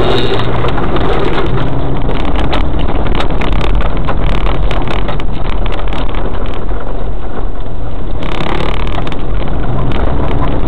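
Land Cruiser 4x4 driving slowly along a rough dirt forest track: a loud, steady engine and drivetrain rumble with frequent knocks and rattles as it rides the bumpy ground.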